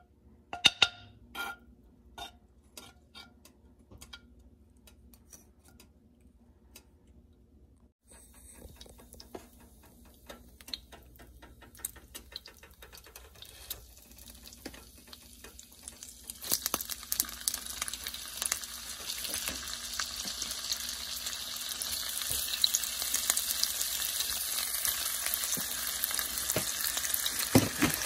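A metal spoon scrapes and taps in a frying pan as fat goes in. About eight seconds in, the fat begins to sizzle. Smoked sausages frying in the hot fat then make the sizzling much louder a little past halfway, and it settles into a steady, dense frying hiss.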